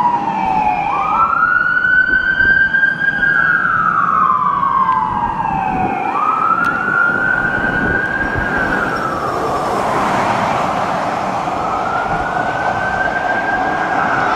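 Fire engine siren sounding a slow wail, its pitch rising and falling about every four to five seconds.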